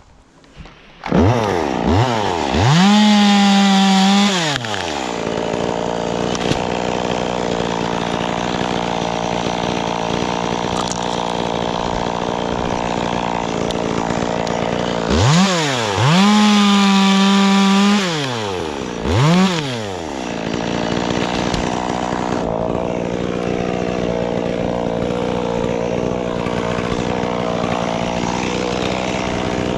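Chainsaw engine starting up about a second in, then revved to full throttle for about two seconds, dropping back to idle, revved again for about two seconds and once more briefly, then idling.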